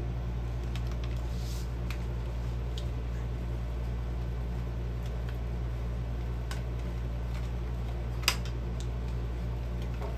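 Steady low room hum with a few faint clicks, and one sharper click a little after eight seconds in.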